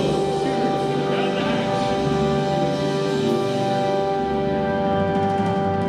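Live German folk band (Volksmusik) with accordion, keyboards, guitar and drums, holding one long chord.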